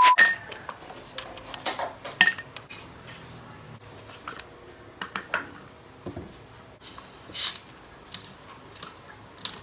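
Ice cubes clinking into a glass and a plastic ice-cube tray knocking against a hard tabletop, a run of scattered sharp clicks and knocks. About seven seconds in comes a brief hissing rush as a plastic Coke bottle is handled beside the glass.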